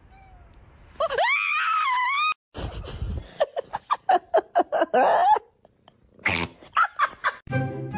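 A cat's drawn-out meow with a bending pitch about a second in, then a short harsh burst of noise, followed by runs of quick, choppy vocal pulses at about five a second. Background music starts near the end.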